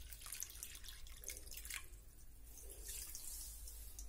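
Water poured from a plastic measuring cup onto sugar in a nonstick frying pan, trickling and splashing faintly and unevenly.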